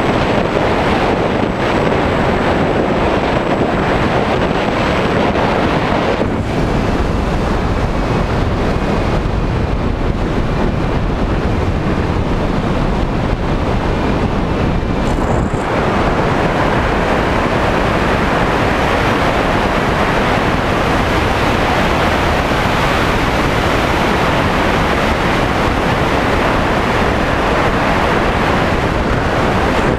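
Steady, loud airflow rush over the onboard camera's microphone of a Skywalker FPV model plane in flight. A faint high tone sits under it for several seconds in the middle.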